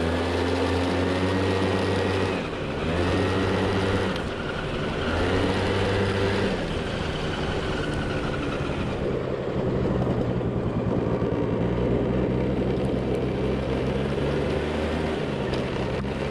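Suzuki Address V100 scooter's two-stroke engine and belt drive running steadily, the engine speed stepping up and down every few seconds. It is being run to check for an abnormal drivetrain noise.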